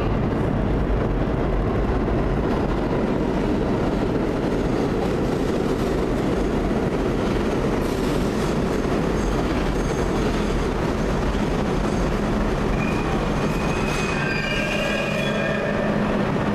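New York City subway train pulling into the station on the far track, with a steady rumble from its wheels and motors. Brakes squeal in a few high tones as it slows to a stop near the end.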